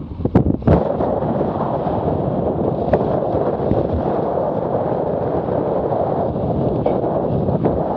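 Strong wind buffeting the microphone of a camera aboard a Laser Radial sailing dinghy, over the rush of water and spray along the hull as it drives through chop. There are a few sharp knocks about half a second in.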